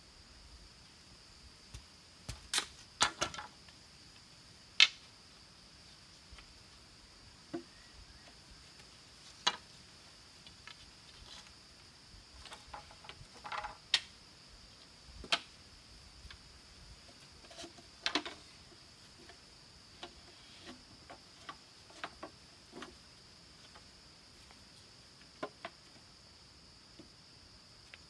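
A machete knocking, chopping and splitting bamboo: scattered sharp cracks and taps at an uneven pace, the loudest about five seconds in, with a busier run of small knocks around the middle. A steady high-pitched whine runs faintly underneath.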